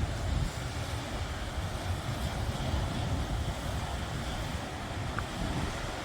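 Wind buffeting the microphone over a steady rushing roar.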